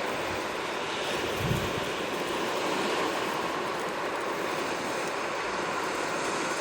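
Sea waves washing steadily on the shore, with a brief low thump about a second and a half in.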